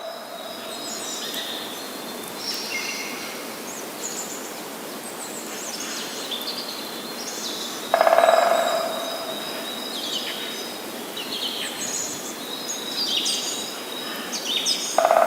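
Birds chirping and singing over a steady outdoor hiss, with many short high chirps throughout. About 8 s in, a louder, lower animal call lasts about a second, and a shorter one comes near the end.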